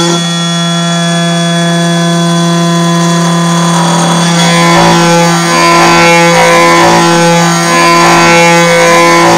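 Pocket NC desktop five-axis CNC mill cutting an aluminium block: a steady machine whine, joined about four seconds in by pitch sweeps that rise and fall again about once a second as the axes move.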